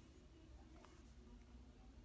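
Near silence: room tone, with a couple of faint light ticks as fingers pick at the packing tape on a cardboard mailing box.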